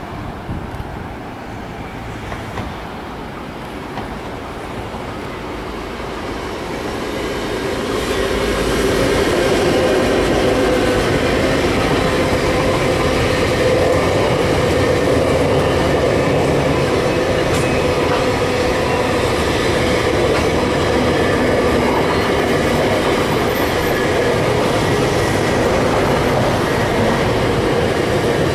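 Diesel-hauled freight train approaching on a curve, growing louder over the first eight seconds or so. A long string of box vans then rolls by with a steady rumble of wheels on rail.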